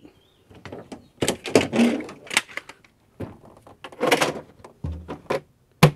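Plastic roadside warning triangle being folded down and stowed, with irregular rattling and clattering, a dull thump about five seconds in, and a sharp click near the end.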